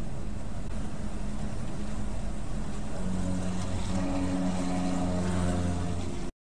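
Vehicle cruising at highway speed, heard from inside the cabin: steady road and tyre noise, with a steady low engine drone joining about halfway through. The sound cuts out abruptly near the end.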